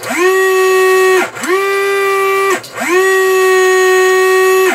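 Small brushed electric motor, run by a Demon 2C speed controller, whining as it spins up to full speed, holds a steady high pitch, then winds down, three times in a row as it is switched between full forward, brake and reverse. There is a brief click in each short gap between runs.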